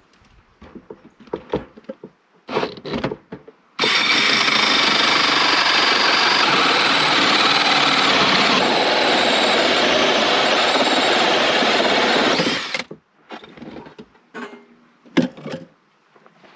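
Cordless drill running at a steady speed for about nine seconds as it bores through the cabin's wooden wall, starting about four seconds in and cutting off suddenly. Light knocks and handling clicks before and after it.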